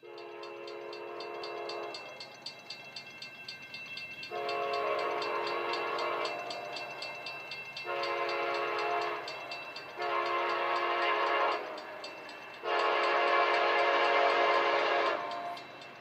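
VIA Rail passenger locomotive's air horn sounding a series of five blasts, the last one the longest, over a steady low rumble: the warning sounded for the Greenbank Road grade crossing.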